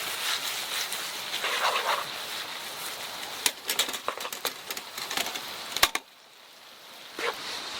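Food cooking over a wood fire: a steady sizzle with many sharp crackles and clicks. It drops away suddenly about six seconds in, then the clicks come back near the end.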